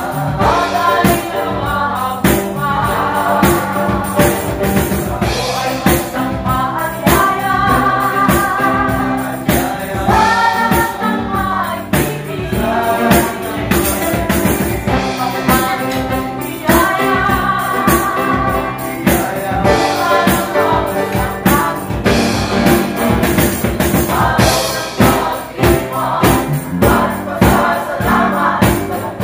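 Live band music with several voices singing together over a steady beat.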